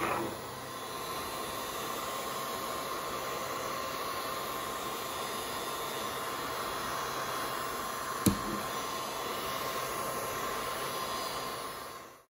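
Philips hand-held hair dryer blowing steadily, a even rushing hiss with a faint steady whine, cutting off abruptly near the end. A single short knock sounds about eight seconds in.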